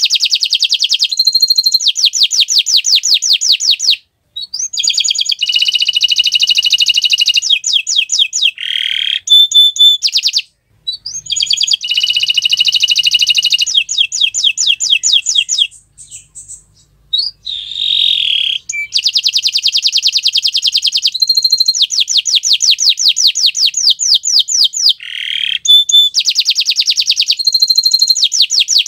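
Domestic canary singing loudly: long phrases of fast repeated trills and rolls, broken by short pauses about four, ten and sixteen seconds in.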